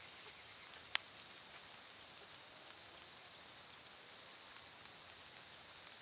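Water dripping after rain: a faint steady hiss with scattered light ticks, and one sharp click about a second in.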